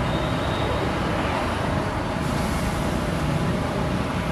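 Steady, even rumbling street noise, like road traffic.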